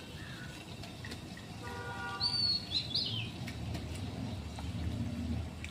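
A bird calling outdoors: a couple of short, high chirps that slide downward, about two seconds in, over a steady background hiss.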